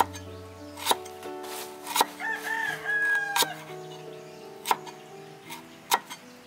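A rooster crows once, a little over two seconds in, for about a second. Around it come sharp knocks roughly once a second, which are the loudest sounds.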